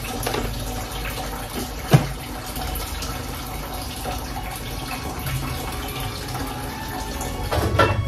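Steady splash of running tap water, with one sharp knock about two seconds in and clattering starting near the end.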